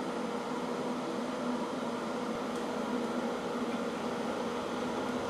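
Wire-feed welding arc running a bead around a steel pipe joint: a steady sizzling hiss with a low hum underneath, unbroken throughout.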